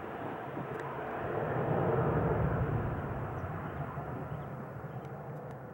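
Boeing 737-700 airliner's two CFM56-7B turbofan engines at takeoff power as it climbs away after takeoff: a broad, even jet noise that swells to its loudest about two seconds in, then fades as the aircraft recedes.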